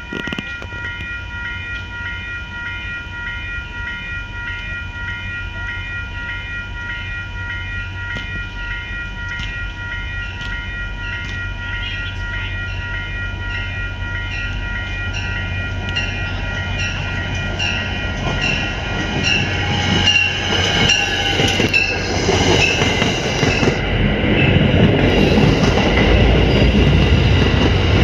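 Grade-crossing warning bell ringing in a steady, even rhythm as an MBTA commuter train approaches, its sound swelling louder. Near the end, the train's passenger coaches roll by with a heavy rumble of wheels on the rails.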